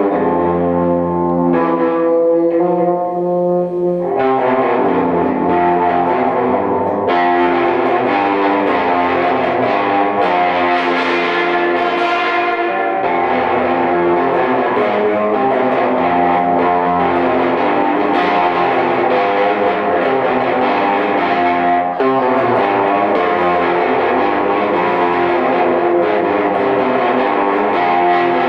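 Background music led by an electric guitar played through distortion effects, with sustained notes that change every few seconds.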